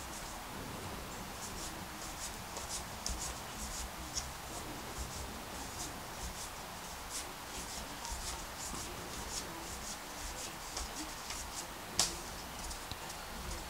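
A stack of baseball trading cards being thumbed through by hand, with soft papery rubbing and many quick flicks as the cards slide off one another. One sharper tap comes near the end, the loudest sound.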